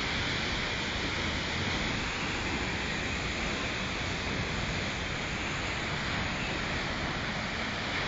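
Steady rushing of a tall waterfall plunging into its pool, an even noise with no breaks.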